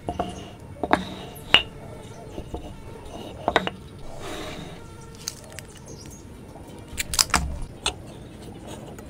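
Scattered sharp knocks and clicks of hardwood pieces set down on a wooden workbench and of a steel rule and try square being handled, with a cluster of clicks about seven seconds in.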